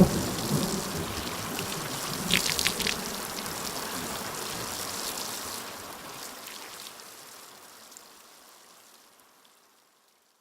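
Rain and trickling-water sound effect, with a few sharp drips about two and a half seconds in. It fades out slowly over the last several seconds to silence.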